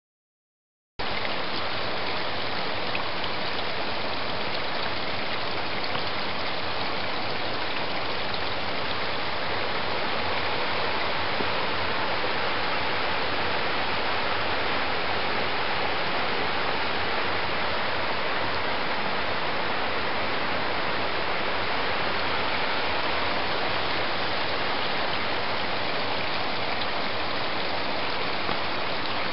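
A mountain river rushing over a stony bed: a steady, even rush of water that starts about a second in and holds unchanged.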